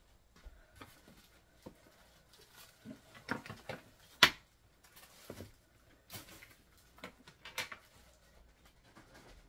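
Papers and small items being handled while clearing a cluttered coffee table: paper rustling with scattered clicks and knocks, the sharpest one about four seconds in.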